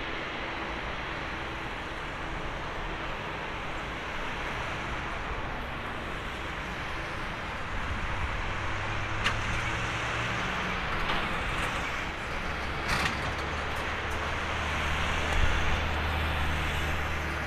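Airbus A350-900's Rolls-Royce Trent XWB jet engines at taxi power, a steady hiss over a low hum that grows a little louder about halfway through. A couple of short sharp clicks come through in the middle.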